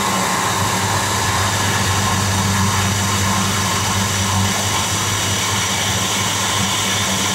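2003 Jeep Grand Cherokee's 4.0-litre inline-six engine idling steadily after being restarted: it is running, with the repaired fuel-injection fuse circuit (previously shorted to ground) no longer blowing the fuse, and it actually sounds better than before.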